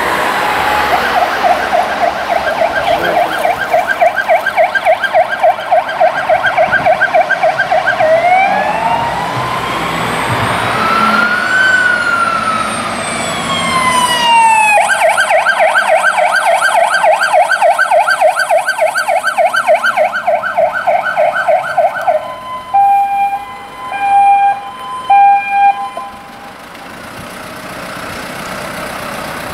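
Siren of a Star 8.157 fire engine on an emergency run: a fast pulsing yelp switches about eight seconds in to a slow wail that rises and falls once, then returns to the fast yelp. Near the end come several short horn blasts, the loudest sounds.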